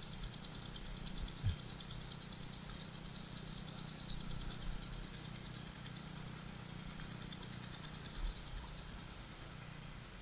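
Steady low hum like a small engine running, with a faint high steady buzz over it and two short low thumps, one about a second and a half in and one near the end.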